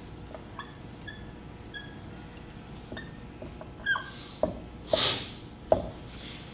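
Dry-erase marker writing on a whiteboard: a few short high squeaks in the first two seconds, then sharp taps as strokes and marks are put on, with a brief hiss about five seconds in.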